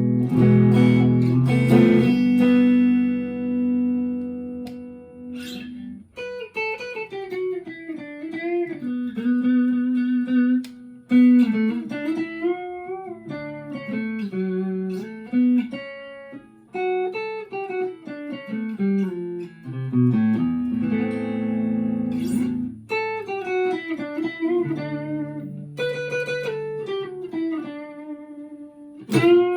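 Chapman ML3 Thinline Pro Classic electric guitar played through a Harley Benton Tube15 valve amp. A chord rings out for the first few seconds, then a noodling single-note lead line follows, with string bends, vibrato and the odd chord.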